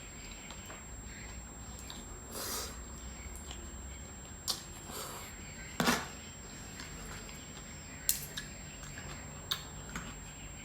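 Close-up eating sounds: soft chewing of gado-gado with a few sharp clicks of cutlery on a plate.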